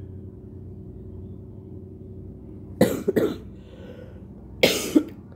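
A person coughing in two short bouts, about three seconds in and again near the end, each a quick double cough. The cough comes with the flu, cold and sore throat the person is suffering from.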